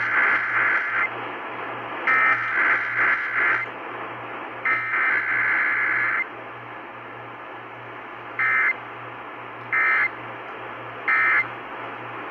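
Emergency Alert System (SAME) data bursts heard off a radio broadcast. Three header bursts of warbling two-tone digital data, each about a second and a half long, come first. Then three short end-of-message bursts follow about a second and a half apart, over a steady low hum and hiss.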